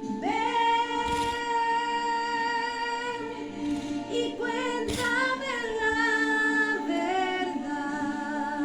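Music: a singing voice holding long notes, changing pitch a few times, over a steady low note.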